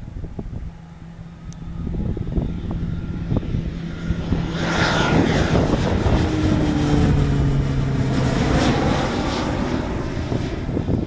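Piper PA-46 single-engine propeller aircraft climbing out after takeoff and passing close overhead. The engine and propeller drone grows louder toward the middle and drops in pitch as the plane goes by.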